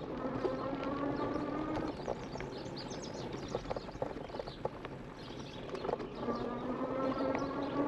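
Electric bike's assist motor giving a steady whine that rises slightly in pitch. It cuts out about two seconds in and comes back about six seconds in. Underneath, the tyres roll over a dirt trail with scattered clicks and rattles, and birds chirp.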